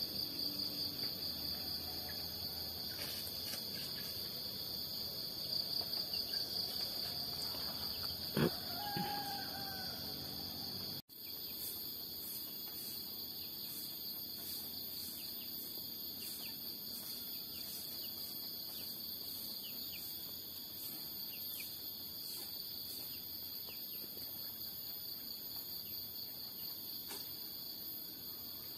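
Steady, high-pitched chorus of insects, with a rooster crowing once in the distance about eight seconds in. The sound drops out for an instant near the middle.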